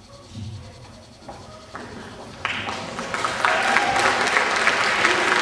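Theatre audience applauding, starting about halfway through and quickly growing louder.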